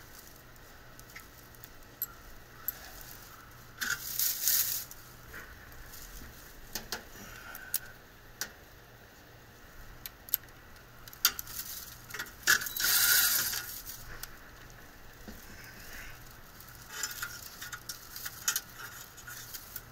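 Scattered metal clicks, clinks and rattles of tools and sheet-metal parts being handled while an HVAC unit is worked on, with two longer scraping noises, one about four seconds in and a louder one about thirteen seconds in.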